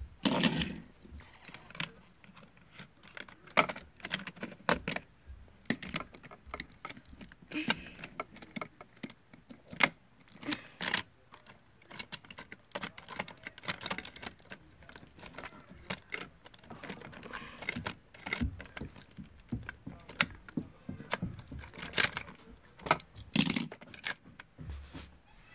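Irregular plastic clicks, knocks and rattles from a toy car and a Hot Wheels plastic playset being handled, with a few sharper knocks scattered throughout.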